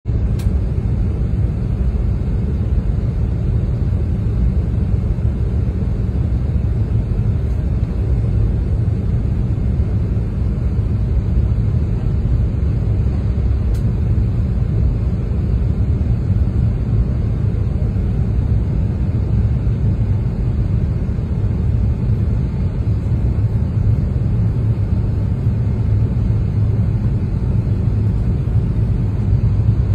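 Steady low rumble of an airliner's cabin noise in flight: engine and airflow noise heard from inside the cabin at a window seat.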